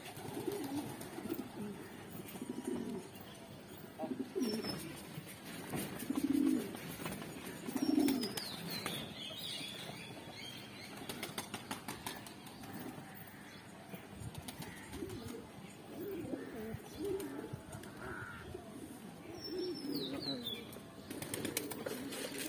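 A flock of domestic pigeons cooing, with short bursts of wing flapping as birds take off. A few high, falling calls come from another bird.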